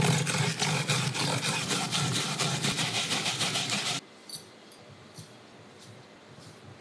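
A garlic clove being grated on a plastic box grater: fast back-and-forth scraping strokes that cut off suddenly about four seconds in. After that it is quiet apart from a few faint clicks.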